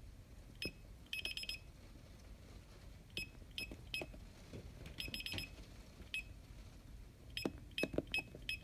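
DSC Impassa alarm keypad beeping: single high beeps, some with the click of a key press, and a few quick runs of rapid beeps, about a second in, past five seconds, and near the end.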